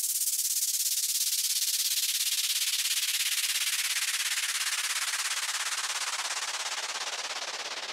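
Electronic dance music transition effect at the end of a track: a hissing white-noise sweep with a fast flutter that slowly falls in pitch, with no beat under it.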